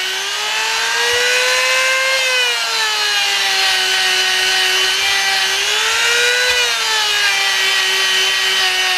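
Harbor Freight Dremel-type rotary tool running with a buffing bit, polishing aluminium. Its steady whine rises in pitch twice, about two seconds in and again about six and a half seconds in, and sinks back each time.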